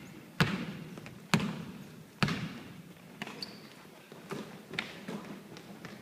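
Basketball bouncing on a court floor: three loud bounces about a second apart, then fainter bounces and footfalls, each with a short echo. A brief high squeak comes about three and a half seconds in.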